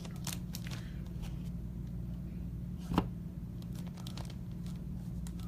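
Crinkling and rustling of card-pack wrappers and cardboard being handled, with one sharp knock about three seconds in, over a steady low hum.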